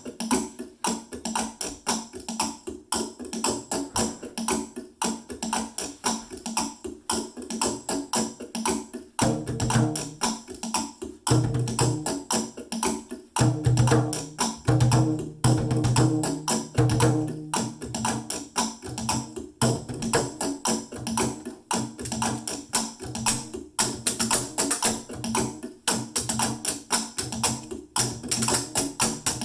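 Steady, fast percussion groove of taps and clicks played on household found objects used as drums. From about nine to eighteen seconds in, deeper heavy hits join the groove.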